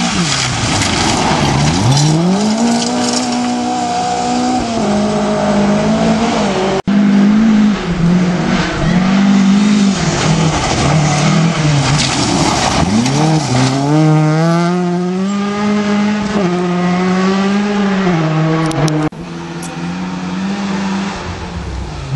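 Rally cars at full throttle on a gravel stage: engines revving hard, the pitch climbing and dropping repeatedly through gear changes, over a steady hiss of tyres on loose gravel. Three passes by different cars follow one another, joined by abrupt cuts about a third of the way in and near the end.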